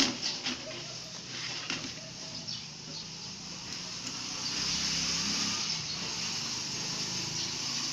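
A sharp click, then a desktop computer system unit running with a steady whir and hiss from its fans, a little louder around the middle, after being switched on.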